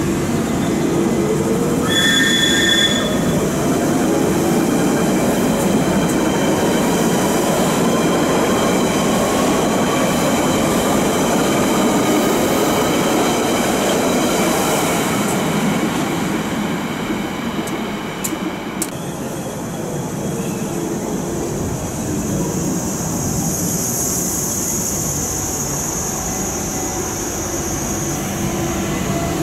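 London Underground 1992 tube stock train pulling away and running past, its traction motors giving a whine that rises in pitch as it accelerates over the wheel and track rumble. A high-pitched wheel squeal comes in near the end.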